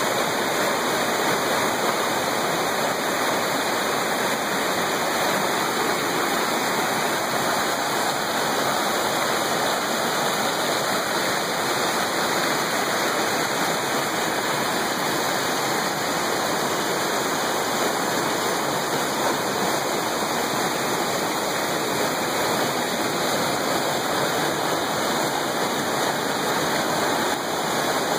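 Mountain stream rushing over boulders and small cascades: a steady, even rush of water with no breaks.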